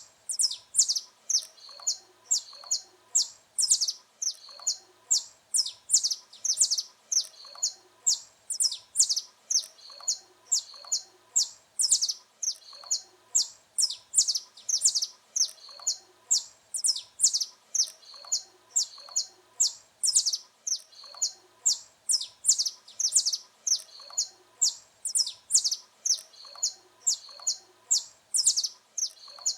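Saffron finch (canário-da-terra) singing: high, sharp chirping notes repeated over and over in a steady, unbroken rhythm.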